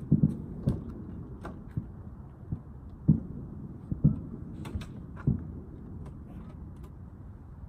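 A series of dull thumps and knocks at irregular intervals over a steady low hiss, dying away after about five seconds.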